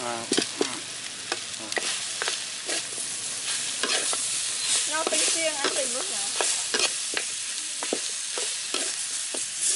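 Crocodile meat frying in hot oil in a pan, sizzling steadily, while a spatula stirs it with repeated scrapes and knocks against the pan.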